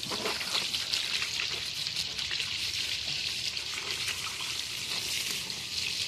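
Water running in a steady stream and splashing onto raw fish fillets as they are rinsed, a constant hiss with small irregular spatters.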